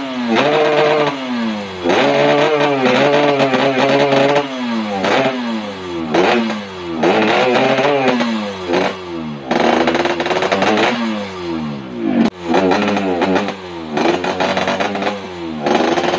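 Yamaha RX-King's two-stroke single-cylinder engine revved over and over while standing: the throttle is blipped about once a second and the note falls back after each rev, with one longer held rev a couple of seconds in.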